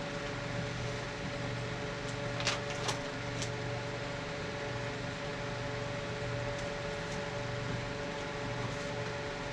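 Steady mechanical room hum with two held tones, like a fan or appliance running, and a few brief sharp clicks or crinkles about two and a half to three and a half seconds in.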